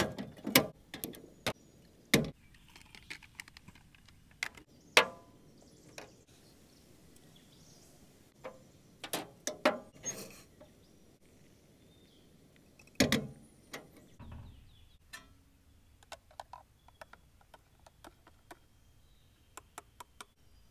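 Clunks and clicks of a portable butane camp stove and a steel pot being handled and set down on a metal tray, with one loud knock about two-thirds of the way through. Toward the end, a spoon clinks quickly and lightly against a ceramic mug while stirring.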